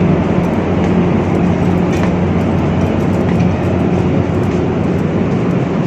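Steady loud drone of a passenger ferry's engines and machinery: a constant low hum with a rushing noise over it.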